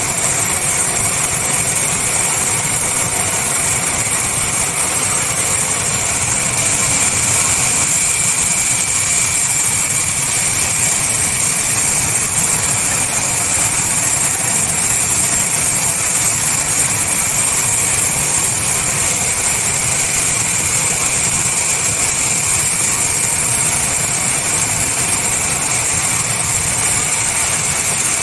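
Sawmill machinery running steadily: a constant loud mechanical noise with a steady high whine.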